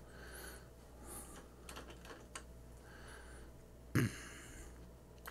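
A few scattered keystrokes on a computer keyboard, with a louder knock about four seconds in.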